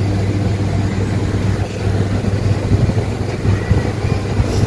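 Steady low mechanical hum at a constant pitch, like a running engine or machine, over a haze of background noise, with a few brief low jolts in the second half.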